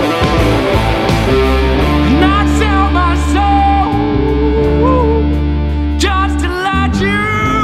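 Heavy blues-rock band recording: electric guitar playing bent notes over held bass notes and cymbals, with a brief drop in the bass near the end.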